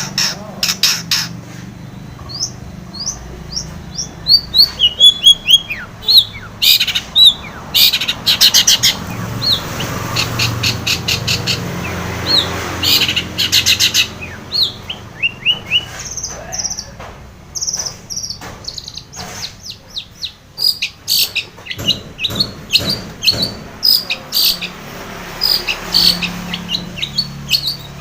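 Long-tailed shrike (cendet) singing: a varied run of short gliding whistled notes broken up by rapid rattling chatter.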